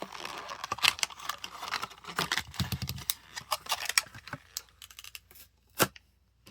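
A plastic blister pack and its card being opened by hand to free a diecast car: dense crinkling and snapping of plastic for the first four seconds or so, then a few scattered clicks and one sharp snap near the end.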